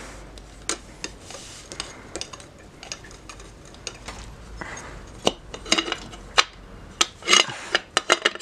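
Sharp metallic clinks and taps of a wrench and loose bolts against the metal clutch cover of a Honda CR125 as the cover bolts are undone and the cover is worked loose. The clicks are sparse at first and come thicker and louder in the second half.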